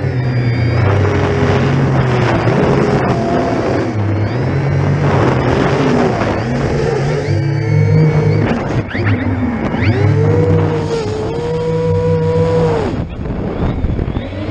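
Motors and propellers of a 12S X-class FPV quadcopter heard from its onboard camera: a loud whine that keeps rising and falling in pitch with the throttle, over a rushing noise.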